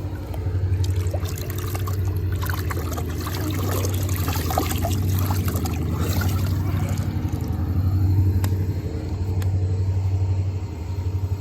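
A steady, evenly pulsing low rumble like a running engine. From about two seconds in to about seven, a hissing noise with scattered clicks rises over it.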